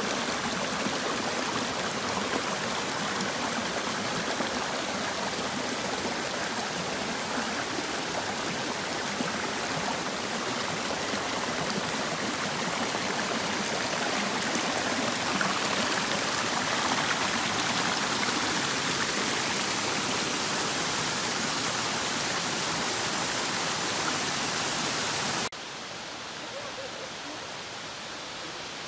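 Shallow woodland creek running over rocks: a steady rush of moving water. A few seconds before the end it drops abruptly to a quieter, duller background.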